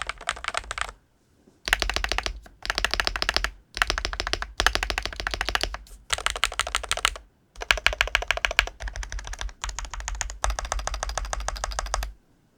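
Fast typing on a GLITTER65 HE Pro magnetic Hall-effect keyboard with a polycarbonate case: rapid runs of keystrokes in stretches of a second or two, broken by short pauses, stopping shortly before the end.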